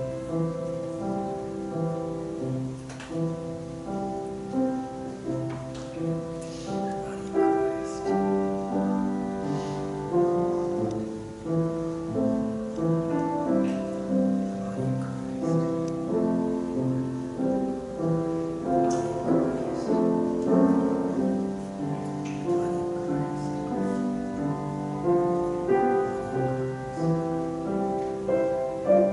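Piano playing slow, soft instrumental music, a steady run of notes with no singing.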